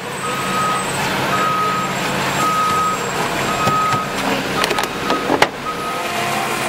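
Flatbed tow truck's backup alarm beeping about once a second over the truck's steady engine hum. A sharp knock about five seconds in.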